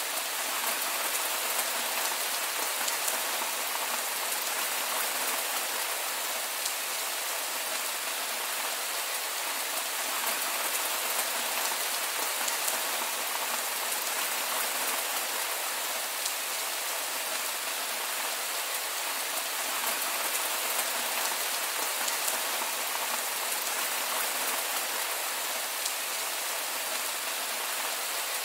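Heavy rain falling steadily: a dense, even hiss with occasional sharper ticks of single drops.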